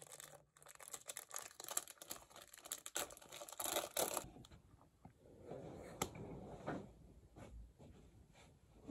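Plastic wrapper of a packaged sandwich crinkling and tearing as it is opened, a dense rustle that stops about four seconds in. After it come quieter handling sounds with a single click about six seconds in.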